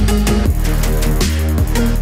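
Background electronic music with a heavy bass line and a steady beat.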